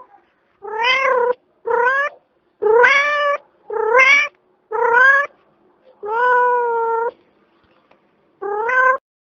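Domestic cat meowing seven times in a row, each meow rising at its start and lasting about half a second, the sixth one longer at about a second.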